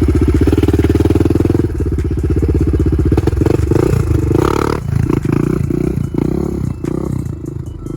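Engine of a Honda TRX400ex quad running loud with a steady, even throb, then turning choppy and uneven and dropping off near the end.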